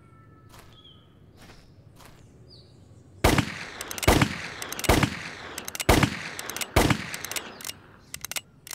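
Five gunshots about a second apart, each ringing out after it, with small clicking sounds between and after the shots.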